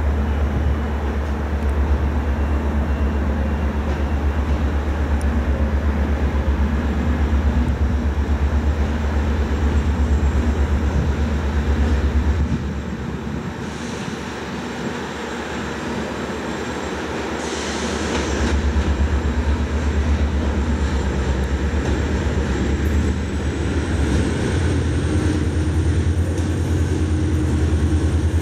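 Diesel locomotive engine running with a deep, pulsing drone as it hauls a passenger train into the platform. The drone drops off about twelve seconds in and comes back some six seconds later, with a brief hiss just before it returns. A faint high whine comes in near the end.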